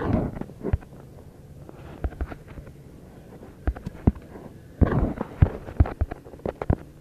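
Irregular knocks and taps from objects being handled, with two short rustling scrapes, one at the start and one about five seconds in.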